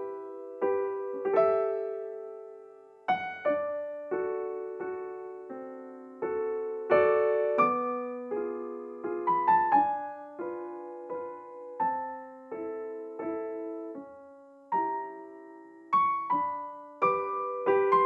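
Slow solo piano music: single notes and chords struck and left to ring out and fade.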